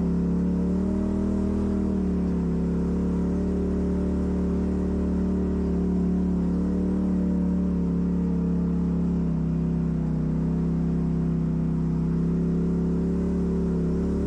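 Off-road vehicle engine running at steady low revs, lifting slightly in pitch for a moment near the start, then holding steady.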